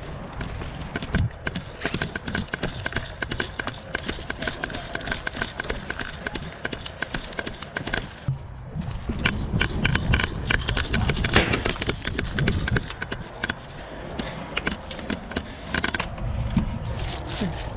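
Footsteps of a player moving on foot with gear rattling, heard as many quick irregular knocks. A low rumble, likely wind or handling on the microphone, runs underneath.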